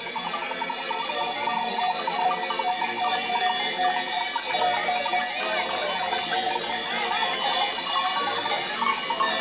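Many goat collar bells clanging and jingling together as a herd of goats walks past, with a few short goat bleats mixed in.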